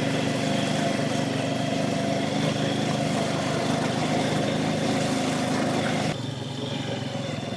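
ATV engine running steadily under load through mud, easing off about six seconds in. A faint steady high whistle sits above it, which the rider puts down to mud caught in something at the front.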